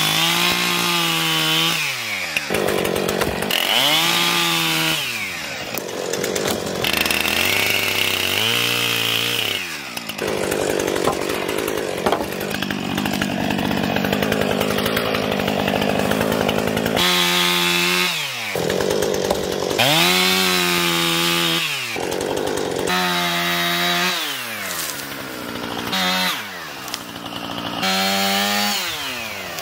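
Gas chainsaw bucking felled small trees into lengths: the engine revs up, cuts and drops back, over and over, about eight times. There is a steadier stretch without revs about a third of the way in.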